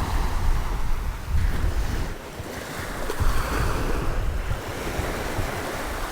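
Strong surf washing onto a beach, with gusty wind buffeting the microphone in low rumbles.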